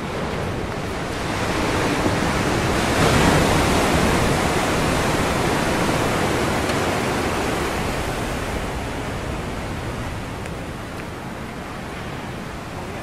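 Ocean surf: a wave breaks with a rising rush that peaks about three seconds in, and its wash slowly dies away over the following seconds.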